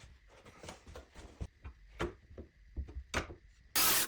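Light knocks, clicks and rubbing as wood and tools are handled, then near the end a power tool starts up with a loud, steady whir.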